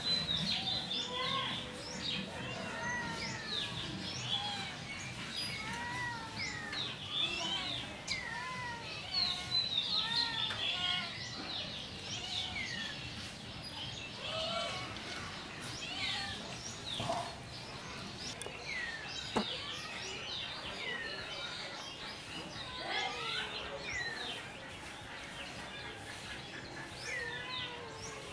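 Many small birds chirping and calling over one another, a dense chorus of short rising and falling notes, with one sharp click about two-thirds of the way through.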